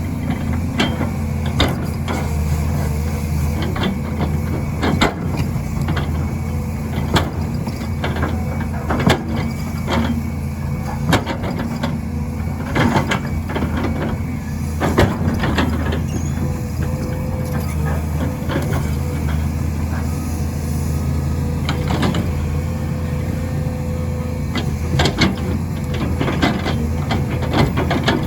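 Volvo EC210B hydraulic excavator's diesel engine running steadily under load, with irregular sharp clanks and knocks from the bucket and linkage as it cuts and works the soil.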